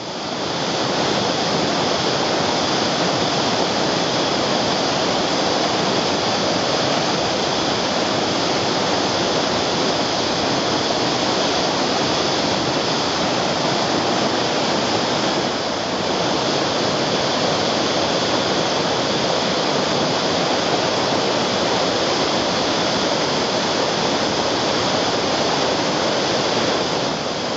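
Whitewater rapid pouring between boulders: a steady, loud rush of churning water, dipping briefly about halfway through.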